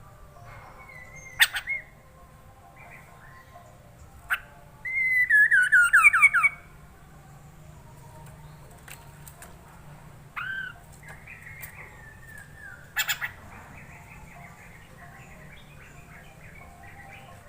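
Poksay mandarin (a laughingthrush) singing: clear whistled phrases, loudest a quick run of falling whistles about five seconds in, with chattering notes later and a few sharp clicks in between.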